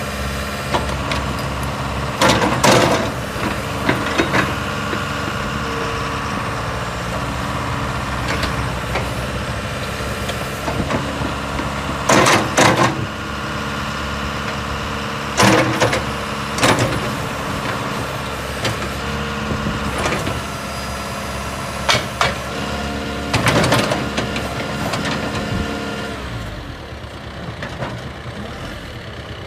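John Deere 310L backhoe's PowerTech Plus 4045 four-cylinder diesel engine running steadily, with several short, sharp knocks or clanks from the machine scattered through it. The engine grows quieter in the last few seconds.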